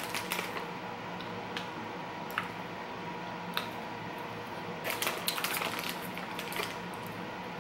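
Plastic snack bag of Bamba peanut puffs crinkling in the hand, with crunching as a puff is eaten: scattered sharp crackles, then a denser run of crinkling about five seconds in as a hand goes back into the bag.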